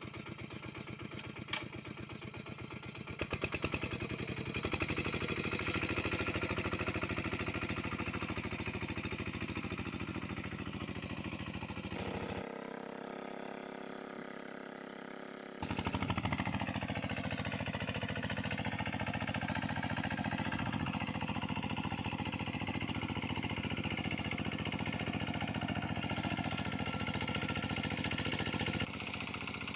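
An engine running steadily with a rapid, even knocking beat. For a few seconds partway through the sound abruptly drops in level and thins out, then returns.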